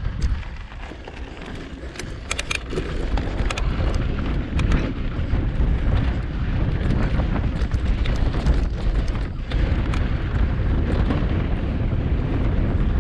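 Mountain bike rolling fast over a rocky dirt singletrack, heard from a camera mounted on the bike: a steady rumble of tyres and wind on the microphone, with sharp clicks and rattles from the bike, most marked about two to three seconds in.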